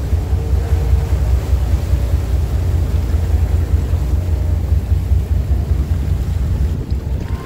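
Deep, steady rumble of a sightseeing icebreaker under way through drift ice, its hull churning the water among the floes, with wind buffeting the microphone.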